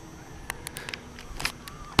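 An irregular run of sharp clicks and taps, about a dozen over a second and a half, starting about half a second in and loudest near the end.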